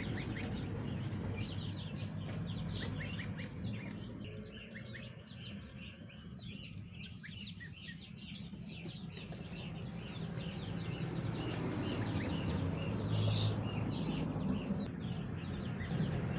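A flock of goslings and ducklings peeping: many short, high chirps overlapping all the way through, thinning out in the middle and growing busier toward the end, over a low steady hum.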